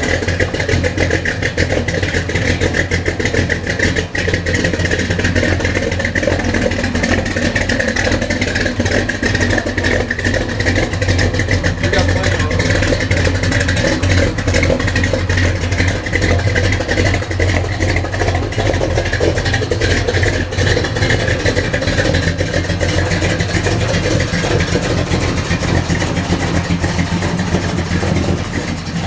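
A 355 small-block Chevy V8 with a Comp Cams Thumpr camshaft, breathing through dual 2.5-inch exhausts with Flowmaster mufflers, running at a steady idle in a 1947 Chevrolet Aerosedan. The Thumpr cam is built to give a lumpy, thumping idle.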